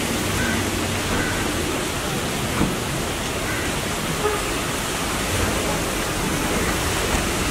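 Steady rushing noise of rain, with a couple of faint knocks.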